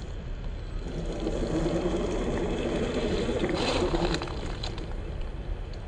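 Electric drivetrain of a 1/10-scale Axial SCX10 II RC crawler with an 80T brushed motor, whining under throttle. The whine builds about a second in, rises with some crackling, and cuts off about four seconds in as the throttle is released.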